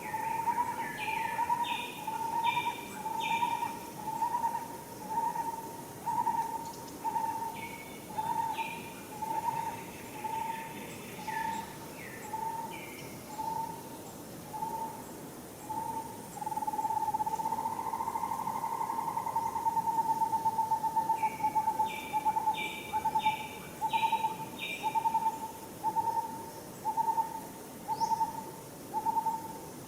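Birds calling: one repeats a single mid-pitched note steadily, a little faster than once a second, which runs together into a longer note for a few seconds past the middle. Another bird gives short runs of three or four higher notes now and then.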